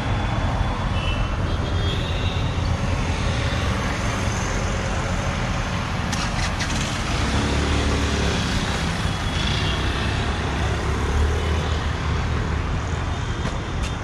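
Steady road traffic: engine rumble and tyre noise from passing vehicles, with a few short high-pitched tones and a brief clatter of clicks about six seconds in.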